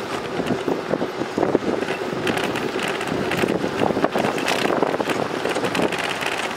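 Wind rushing over the microphone during a bicycle ride on a paved path, with steady tyre noise and a rapid scatter of small clicks and rattles from the moving bike.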